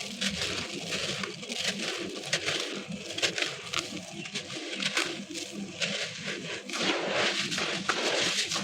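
Wet, gritty concrete pieces being crumbled in water: a dense, irregular run of small crackles and gritty crunches.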